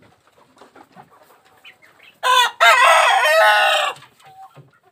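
A rooster crows about two seconds in: a short first note, then one long held note lasting over a second.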